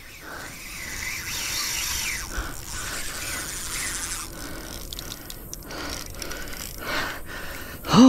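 Okuma Ceymar 5500 spinning reel ratcheting and whirring under the strain of a large alligator gar fighting on the line against a tightened drag.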